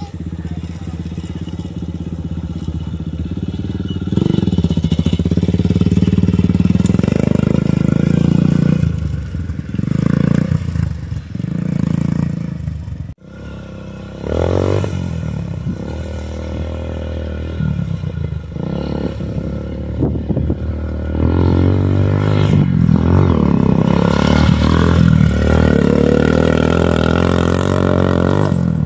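150 cc Yamaha TTR mini dirt bike fitted with an aftermarket sport exhaust, ridden hard: the engine note climbs and falls repeatedly as the throttle is opened and closed. There is a sudden break about halfway through, and the engine comes in loud again near the end.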